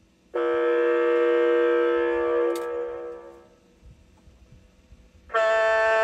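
A CB-radio sound-effects module plays recorded horn blasts: one steady chord-like horn starts about a third of a second in, holds for about two seconds and then fades away. A second horn blast with a different chord starts near the end.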